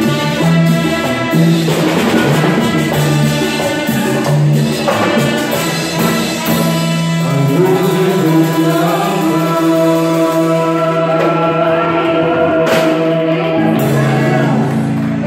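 Live Latin dance band playing salsa-style music, with singing over percussion and held instrument notes.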